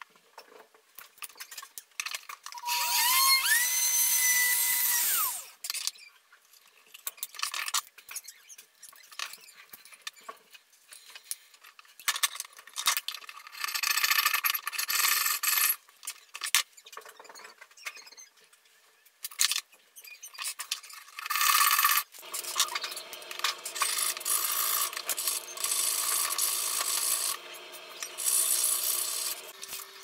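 A jeweller's small rotary tool spins up to a steady high whine and winds down again a few seconds in, followed by irregular scraping and rasping strokes of hand work on silver. Near the end a motor runs steadily at a lower pitch for several seconds with a grinding hiss over it.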